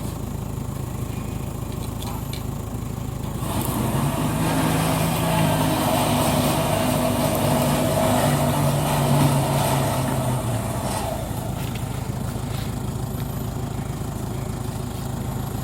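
An engine running steadily. About three and a half seconds in it grows louder, with a higher, steady pitch, as if working under load, and it settles back to its lower running sound about seven seconds later.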